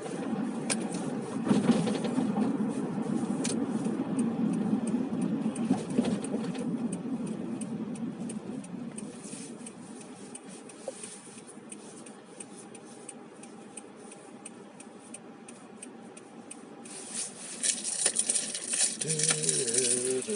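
Road and engine rumble inside a moving car's cabin, with small clicks and rattles over it. The rumble fades about halfway through, and a louder hiss sets in near the end along with a few steady tones.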